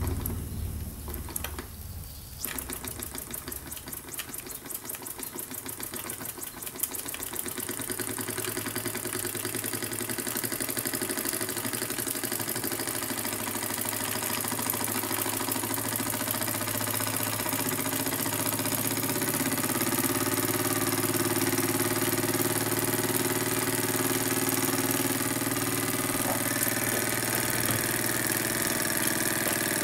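Miniature live-steam engine fed by a small vertical boiler, started by flicking its flywheel by hand. Its beats quicken over the first several seconds and blend into a steady running hum that keeps rising in pitch, with a growing hiss.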